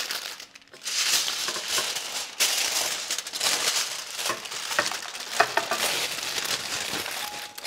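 Wrapping crinkling and rustling as it is folded and pressed around a banana-leaf fish parcel, with a few light clicks in the middle.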